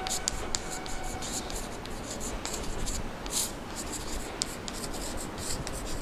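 Chalk writing on a blackboard: a run of short, irregular scratches and taps as letters are formed stroke by stroke.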